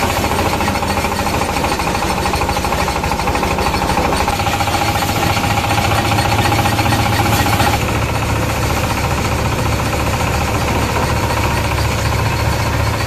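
Engine-driven paddy thresher running at speed with a loud, fast, even rattle while rice sheaves are fed into its drum. A higher whine rides over the rattle and stops about eight seconds in.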